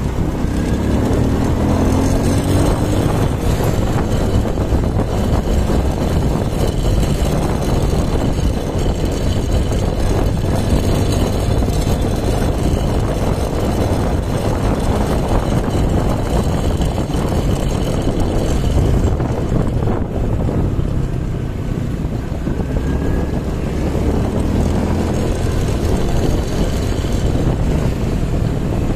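Steady engine and road noise of a vehicle in motion, with wind buffeting the microphone; the engine note rises as it speeds up in the first few seconds.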